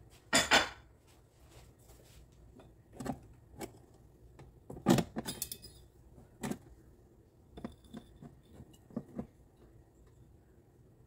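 Metal tongs clinking and scraping against the wire rack and tray inside an air fryer oven as pieces of steak are flipped: a run of sharp clanks, loudest about half a second in and again around five seconds in.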